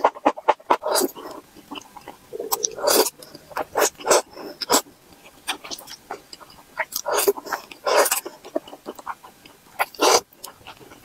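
Mouth sounds of eating thick black bean sauce noodles: wet chewing and smacking clicks, with several slurps of noodles, the loudest a few seconds in and again near the end.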